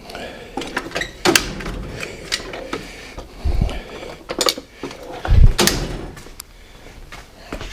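Front disc-brake caliper being levered with a screwdriver, knocking metal on metal in irregular clunks and clicks, with a few heavier thumps. The rubber bushing on its slide bolt has rotted away, so the caliper rattles loose on the bare bolt. This is the source of the banging and clanging from the front end when driving.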